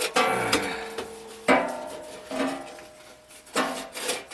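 Sheet-metal stovepipe sections clanking as they are handled and fitted back together: about five knocks, each followed by a short metallic ring.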